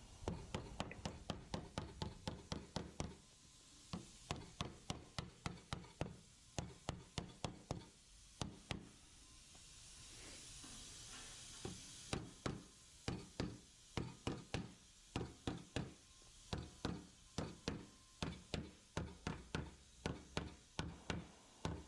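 Hand hammer tapping the flange of a new steel door skin flat onto the door shell. The taps come in steady runs of about three a second, with a few short pauses and a longer lull near the middle.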